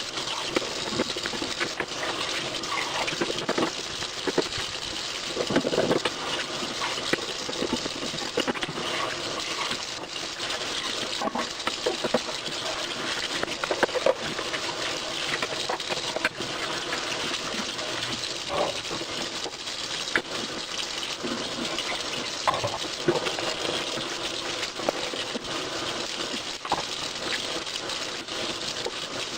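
Water running steadily from a kitchen tap while dishes are washed, with occasional light clinks and knocks.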